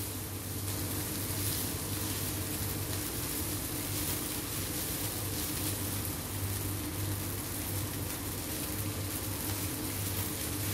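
Rice vermicelli stir-frying in a wok, a steady sizzle as the noodles and vegetables are tossed with a spatula, over a steady low hum.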